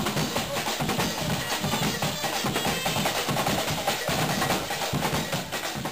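Background music driven by drums and percussion, with a steady beat.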